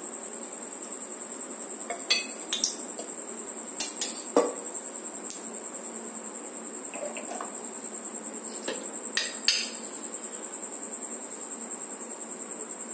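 Metal utensils clinking: scattered sharp clinks of a steel ladle and pots in small groups about two, four and nine seconds in, as cooking oil heats in an aluminium kadai. A steady high-pitched whine and a low hum go on underneath.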